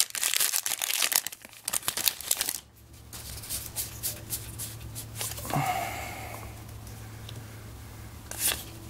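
Foil booster pack wrapper of a Magic: The Gathering Modern Masters 2017 pack crinkling and tearing open by hand for the first couple of seconds, then softer clicks and rustles of the cards being flipped through.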